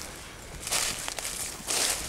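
Footsteps on dry fallen leaves, two steps about a second apart.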